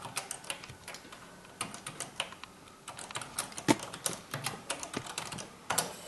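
Typing on an Apple II Plus keyboard: irregular runs of key clicks with short pauses between them.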